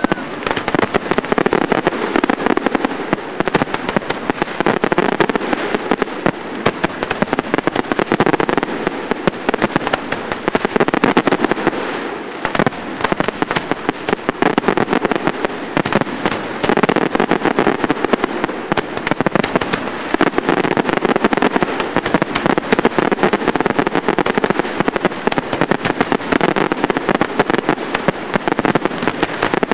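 Fireworks display going off in a dense, continuous barrage: many bangs and crackles a second, overlapping without a pause.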